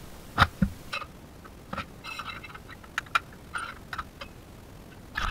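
Scattered light clicks and taps, irregularly spaced, as a stainless steel grab bar and its mounting flanges are handled and fitted against the tile.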